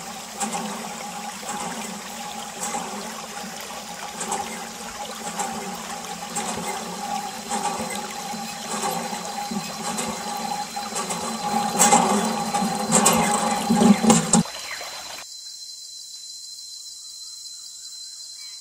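Water squirting from a thin plastic tube and splashing and trickling over a toy backhoe loader, with a steady hum beneath it. The splashing gets louder shortly before the sound drops abruptly to a quieter hiss.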